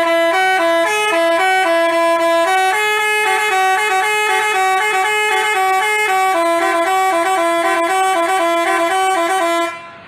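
Telolet basuri multi-tone bus horn playing a quick melody of stepped notes, stopping just before the end.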